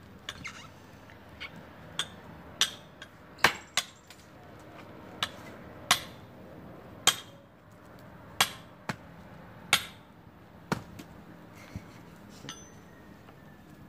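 Hammer blows ringing on a steel wedge driven into an almond-wood log to split it: about fifteen sharp metallic strikes at an uneven pace, some a half second apart, others over a second. The log has not split yet.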